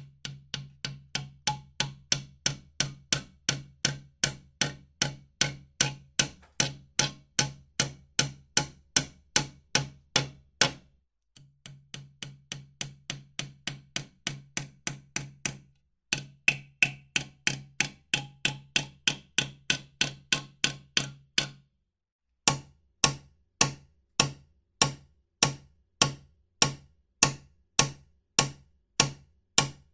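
Hammer driving nails: quick, even strikes at about three a second, in runs broken by short pauses. The last run is slower, at about two strikes a second.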